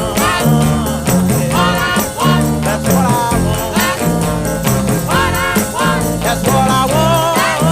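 Music: a song with a steady beat, bass line and a singing voice.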